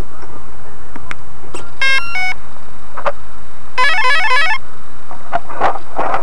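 Electronic beeps: two short multi-tone chirps about two seconds in, then a fast run of stepping tones lasting under a second about four seconds in, with scattered clicks.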